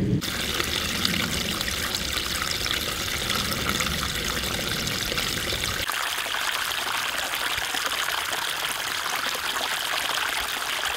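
Small woodland stream trickling over a low ledge: a steady rush of running water. A low rumble beneath it drops away suddenly about six seconds in.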